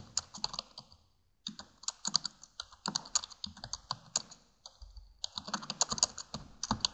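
Typing on a computer keyboard: quick runs of keystrokes, with short pauses about a second in and again near five seconds in.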